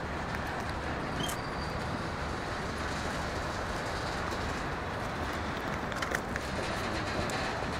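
Container freight train rolling past, a steady rumble of wheels on rail with a few short clicks.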